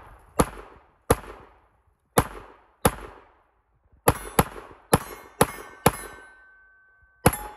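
About eleven gunshots fired at an uneven pace, several in quick pairs, with bullets clanging off steel plate targets. After one shot about six seconds in, a steel plate keeps ringing for about a second.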